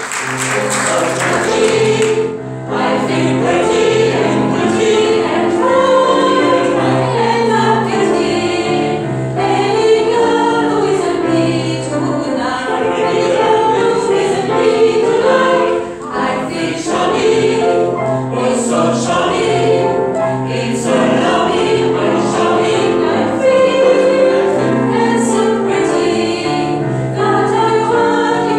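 A mixed choir of men's and women's voices singing together in sustained, shifting chords.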